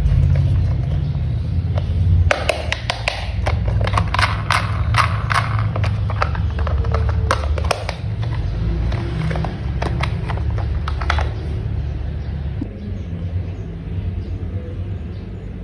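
Background music with a steady low drone, and over it, in the middle, a quick run of sharp clicks and snaps of plastic toy parts being fitted together.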